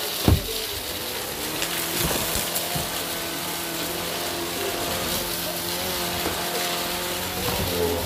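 Shark DuoClean vacuum cleaner running over carpet, a steady motor hum with hiss, picking up a pile of debris. A single loud knock comes just after the start.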